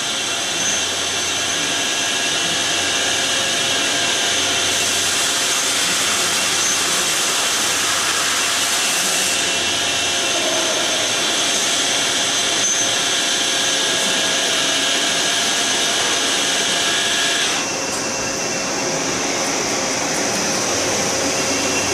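A 2007 Hyundai-Kia SKT-21LMS CNC lathe machining the face of a large disc-shaped workpiece turning in its chuck, with a steady whirring, hissing machining noise. The hiss grows brighter for a few seconds about a quarter of the way in. At about 17 seconds the sound drops and turns duller as the tool pulls away from the part.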